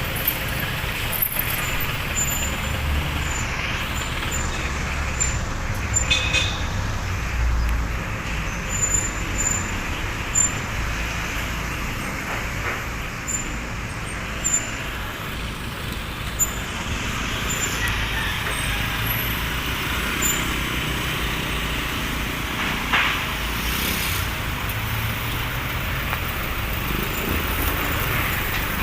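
Street traffic: a steady wash of passing cars and trucks with low engine rumble, broken by a few short sharp knocks and clicks.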